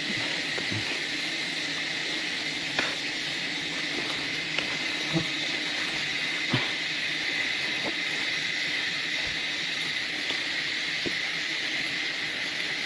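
Insects droning steadily, with a pulsing high-pitched chirr above, and a few sharp knocks and clicks between about three and seven seconds in.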